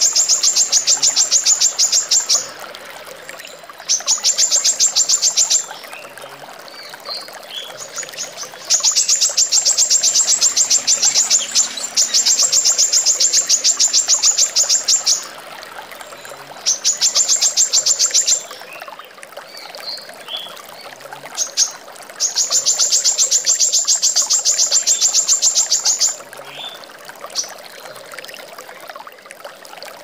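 Female brown-throated sunbird (kolibri kelapa) singing long, very fast trills of high repeated notes in bursts of about two to six seconds, with short single notes in between. A steady rush of running water goes on underneath.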